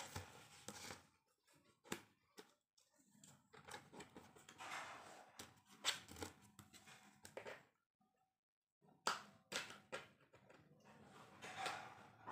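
Faint, scattered plastic clicks and rustling as a toy pool table's board and green plastic leg pieces are handled and pressed together, with about a second of dead silence some eight seconds in.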